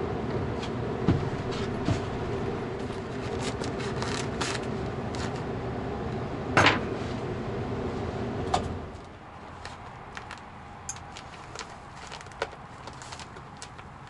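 Steady hum of an attic air handler's blower, with scattered clicks and knocks from the ductwork being handled and one sharp knock a little past halfway. About nine seconds in the hum drops away, leaving fainter clicks and rustles.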